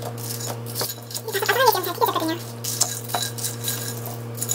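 Metal kitchen tongs clicking as crisp-fried chicken gizzards are picked out of a ceramic bowl and dropped onto paper towels, in a run of light, irregular clicks and clatters. A steady low hum runs underneath.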